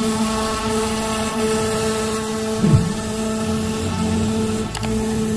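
CNC router spindle running with a steady whine as its bit carves a relief pattern into an MDF board, with one quick dip and recovery in pitch near the middle.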